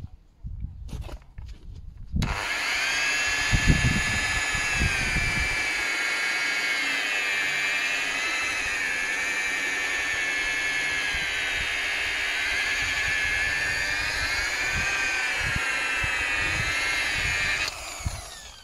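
Corded rotary polisher running against a plastic headlight lens, polishing out the haze. Its motor whine starts about two seconds in, wavers in pitch as the pad is pressed onto the lens, and is switched off shortly before the end.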